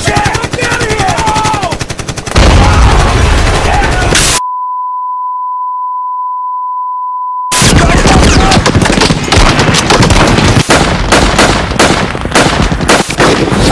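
Rapid automatic gunfire with shouting voices over it. About four seconds in, the gunfire cuts off for a steady 1 kHz test-tone beep lasting about three seconds. The gunfire then resumes, dense and continuous.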